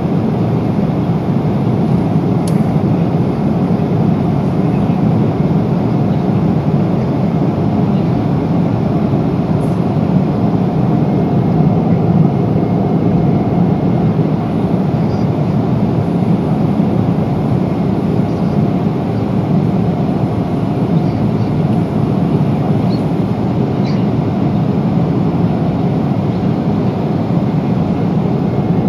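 Steady roar of airflow and engines heard inside the cabin of a Boeing 777-300 airliner in cruise, with a couple of faint ticks.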